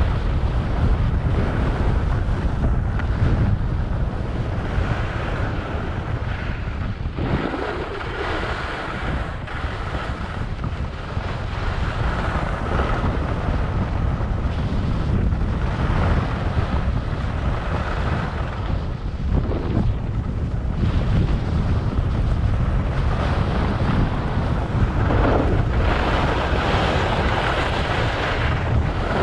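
Steady wind buffeting the microphone, a constant low rush without a break.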